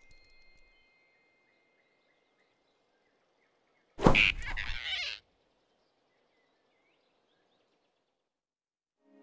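A cartoon sound effect: one sudden loud burst about four seconds in, lasting about a second and sweeping down in pitch, as the big rabbit grabs the flying squirrel. The rest is near silence with faint forest ambience at the start.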